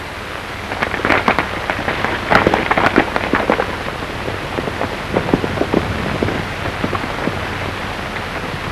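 Irregular clattering knocks, bunched in the first few seconds and thinning out later, over the steady hiss of an old film soundtrack.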